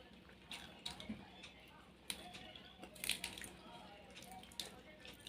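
Faint wet eating sounds close to the microphone: chewing and squishing mouth noises, with a handful of short smacks and clicks.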